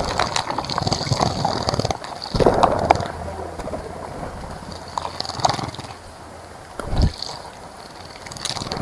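Small birds bathing in a shallow bird bath, splashing and fluttering in irregular flurries, with the busiest splashing about two and a half seconds in.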